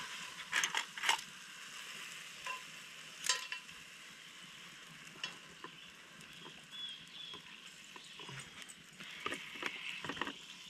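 Kielbasa sizzling in a hot cast-iron skillet straight off the fire, a steady hiss, with a few sharp clinks of a metal utensil against the pan in the first few seconds and lighter taps later as the sausages are lifted onto plates.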